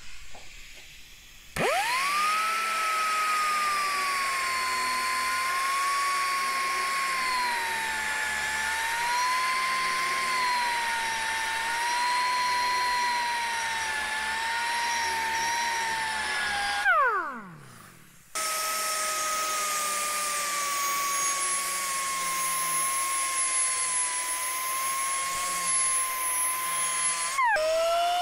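Pneumatic angle grinder with a milling disc cutting into a metal plate: a high air-motor whine that spins up sharply, wavers in pitch as the disc is pressed into the work, then winds down. It starts again and runs steadily before winding down a second time near the end.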